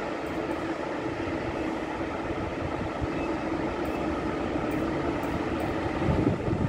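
DB Class 143 electric locomotive approaching at low speed, a steady hum with rolling rumble that grows louder near the end as it draws close.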